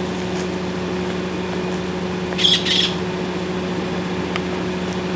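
Scarlet macaw giving two harsh squawks in quick succession about two and a half seconds in, over a steady low hum.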